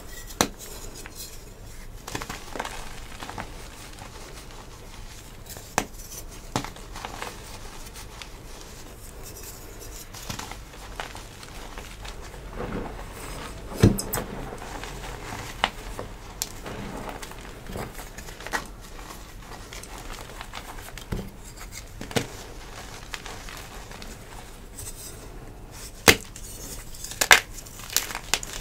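Hands crushing and crumbling blocks of soft dyed gym chalk: scattered crunches and powdery crumbling, with a sharper, louder crunch about halfway through and two more near the end.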